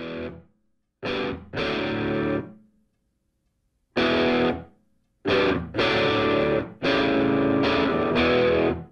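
Background music: a distorted electric guitar playing held chords in short stabs and longer stretches, broken by complete pauses, the longest chord running from about five seconds in to the end.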